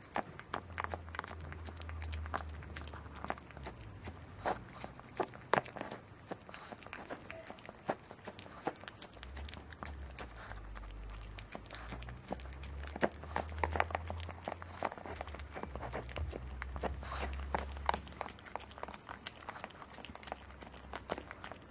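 A chihuahua licking and chewing a soft dog cake from a plastic cup: a quick, uneven run of wet licks and small clicks, over a low hum that comes and goes.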